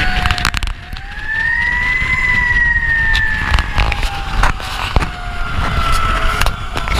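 Fire truck siren heard from on board the moving truck over the low rumble of the engine and road. The siren winds up to a peak about two seconds in, then slowly falls in pitch. A few sharp knocks sound over it.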